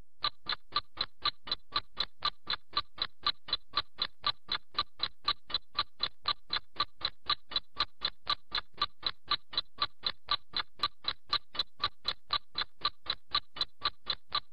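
Clock-like ticking sound effect, sharp identical ticks at a steady pace of about four a second.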